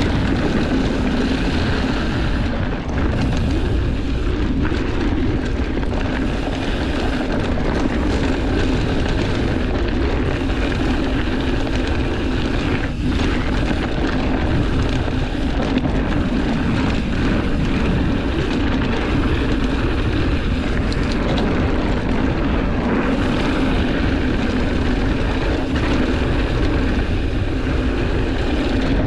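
Wind rumbling over an action camera's microphone while a mountain bike rolls fast down dry dirt singletrack, its tyres crunching and rattling on the trail. The noise is steady, with one sharp knock about thirteen seconds in.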